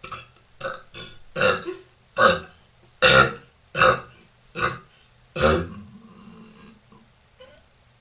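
A woman burping in a quick series of short burps, about nine in five and a half seconds, the loudest around three seconds in. The last one, just after five seconds, draws out into a longer, lower burp that fades by about seven seconds.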